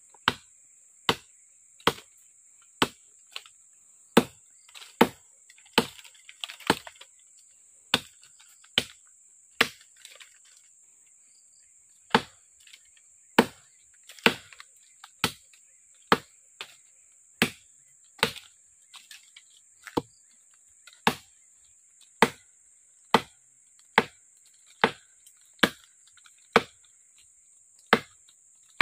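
A short, heavy parang chopping into the trunk of a small tree, sharp blows of steel into wood about once a second, with a pause of about two seconds about ten seconds in.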